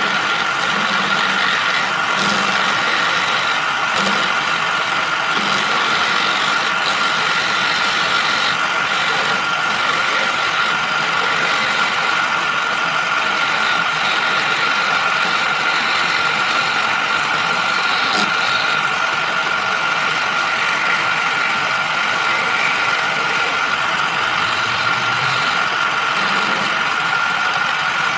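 Small wood lathe running with a steady whine, a hand-held chisel scraping the spinning wooden spindle at times.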